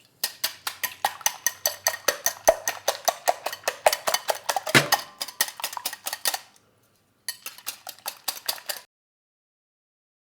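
Eggs being beaten in a bowl: a utensil clicks rapidly against the bowl's side, about five to six strokes a second. It breaks off briefly about two-thirds through, then resumes for a second or so.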